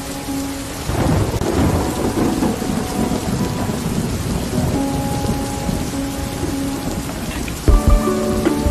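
Steady rain with a roll of thunder starting about a second in and rumbling away over the next few seconds, over soft background music of held notes that grows fuller near the end.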